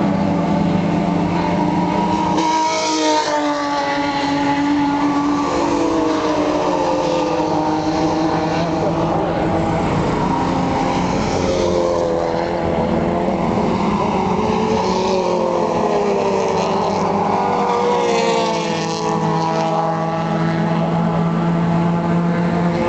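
Touring race cars' engines running hard around the circuit, several engine notes overlapping. The pitch sweeps down as a car goes by about three seconds in and again near the end.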